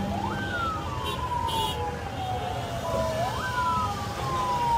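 Emergency vehicle siren wailing: it sweeps up quickly, then falls slowly over about three seconds, and sweeps up again about three seconds in. Low traffic rumble runs underneath.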